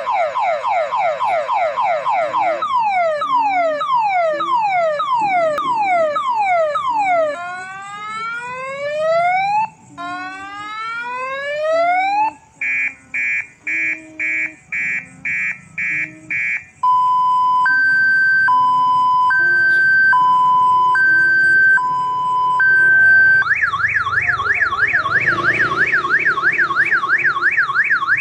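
Electronic multi-tone siren of the kind fitted to odong-odong kiddie-ride vehicles, sounded at a railway level crossing as the warning that a train is about to pass. It cycles through its tones: quick falling yelps, slower falling sweeps, rising sweeps, short beeps about twice a second, a two-tone hi-lo, then a fast warble near the end.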